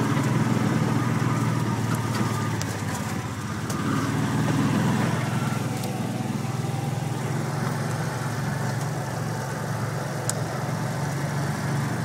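4x4 vehicle's engine running steadily as it drives along a dirt trail, heard from inside the cab, swelling a little about four seconds in, with a few light clicks and knocks.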